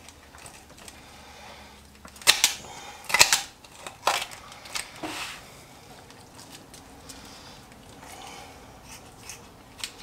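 Chicken shears cutting through a raw chicken's backbone and ribs: several sharp crunching snaps as the blades close through bone, the loudest about two and three seconds in, then a few lighter clicks.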